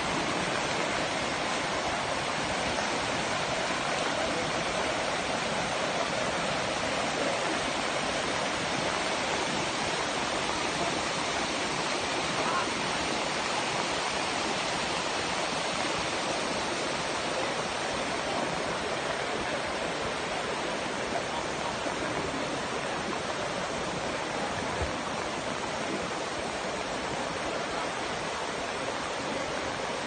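Steady rush of a waterfall's rapids pouring over rock slabs, easing off slightly near the end.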